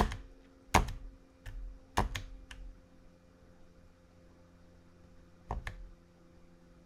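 Sharp single clicks of computer controls stepping through slides: a loud one at the start, others about one and two seconds in, and a close pair about five and a half seconds in, over a faint steady hum.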